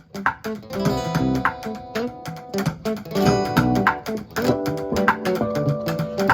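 Live band playing an instrumental passage: strummed guitar over bass, with sharp strikes in a steady rhythm.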